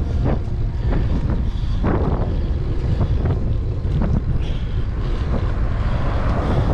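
Strong wind buffeting the microphone, a loud low rumble with scattered sharper gusts.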